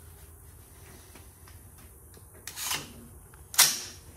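Handling noise from an AR-15 being readied in its rest: a brief scrape about two and a half seconds in, then a single sharp clack about a second later.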